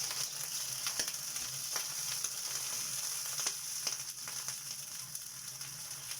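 Hot dogs sizzling in a frying pan with a little added water: a steady hiss with scattered pops and crackles, over a steady low hum.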